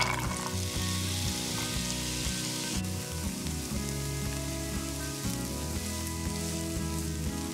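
Diced onion frying in hot fat in a pan: a strong sizzle the moment it drops in, the hiss easing after about three seconds and continuing more quietly. Background music underneath.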